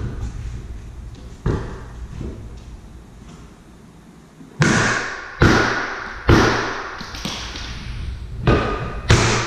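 Hammer blows on a French door unit being knocked out of its frame: a couple of lighter knocks, then from about halfway through heavy thuds roughly once a second, each ringing on briefly.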